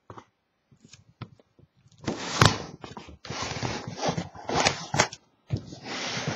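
Large cardboard shipping case being handled and turned on a table. After a couple of quiet seconds, cardboard scrapes and rubs against hands and the tabletop in long stretches, with a few sharp knocks.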